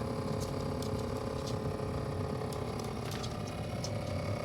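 A steady low electrical hum with a handful of faint, light clicks and taps scattered through it.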